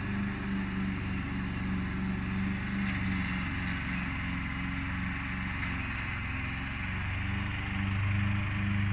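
Ride-on lawn mower engine running steadily as it cuts tall grass, getting louder near the end as the mower comes closer.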